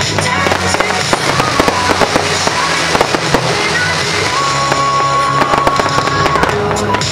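Fireworks going off in rapid succession, many sharp pops and cracks close together, with music playing throughout.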